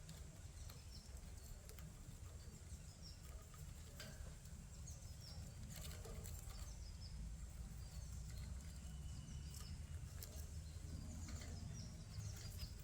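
Faint, scattered chirps of pet budgerigars, with a few sharp clicks, over a low steady rumble.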